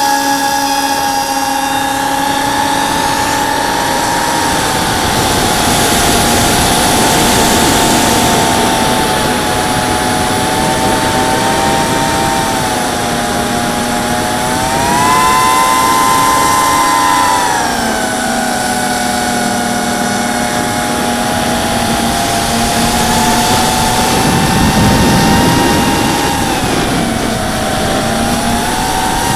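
ZMR 250 mini quadcopter's brushless motors and propellers whining, heard from its onboard camera: several close tones rise and fall together as the throttle changes, highest about halfway through, over a steady rush of air noise.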